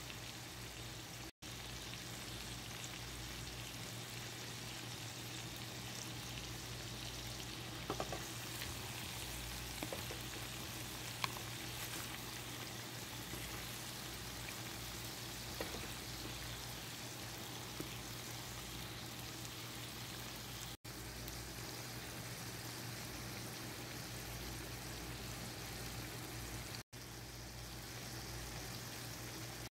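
Mutton gravy sizzling and simmering in the pan: a steady oily hiss with a few sharp pops, over a low steady hum.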